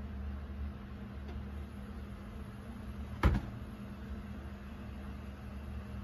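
Steady low electrical hum, with one sharp knock a little over three seconds in that is the loudest sound.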